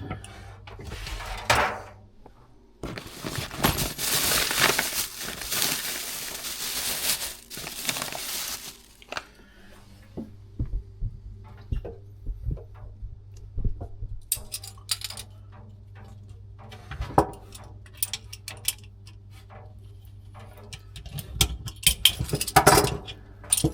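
Metal hand tools clinking and rattling during plumbing work under a sink, with a rushing hiss lasting about six seconds early on and a steady low hum underneath.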